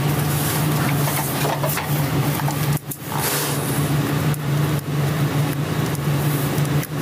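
Steady low hum with hiss, the background room tone of a recorded interview-room video, dipping briefly a little before three seconds in.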